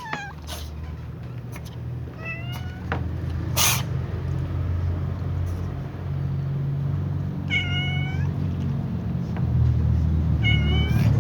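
Cats meowing: four short meows, spread out. About three and a half seconds in there is a short, sharp burst of noise. A low steady hum runs underneath.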